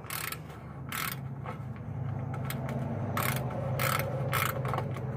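Socket ratchet clicking in several short, separate bursts, over a steady low hum.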